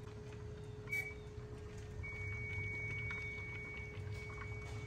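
BMW's electronic warning beep: one short high beep about a second in, then a steady high tone at the same pitch from about two seconds on, over a low steady hum.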